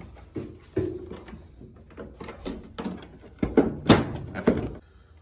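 Clicks and knocks of washing-machine parts being pried and handled as a front-load washer is taken apart, with a louder cluster of knocks about three and a half seconds in.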